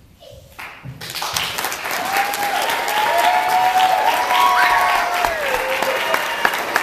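Wedding guests clapping, starting about a second in and quickly building to full applause, with long drawn-out cheers or whoops held over it in the middle.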